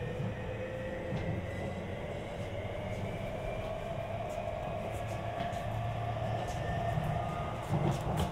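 Sotetsu 20000 series train's Hitachi SiC-VVVF inverter and traction motors whining, the tones climbing slowly in pitch as the train accelerates, over a steady rumble of wheels on rail.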